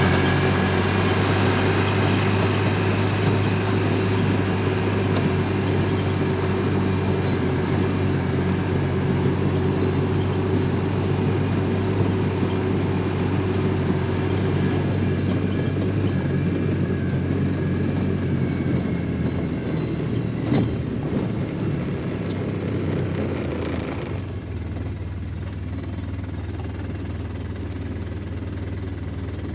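A vehicle engine running steadily with a low hum. About 24 s in, the higher noise falls away and the engine goes on running more quietly.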